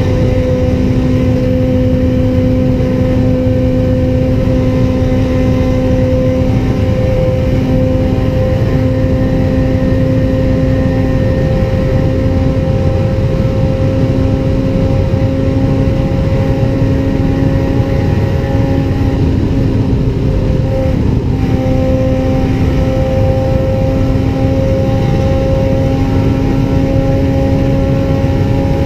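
Honda Civic Type R FD2's 2.0-litre naturally aspirated K20A inline-four running at high revs in sixth gear near top speed, heard from inside the cabin: a steady, loud engine drone whose pitch climbs slowly.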